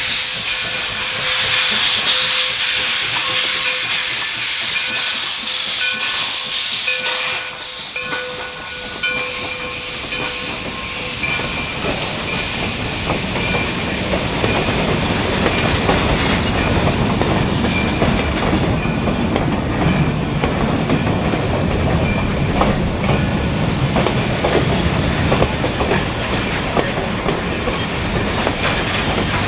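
Steam locomotive hissing loudly as it vents steam, with a steady tone held over the hiss for the first several seconds. Then the train rolls by with a heavy rumble and wheels clicking over the rail joints.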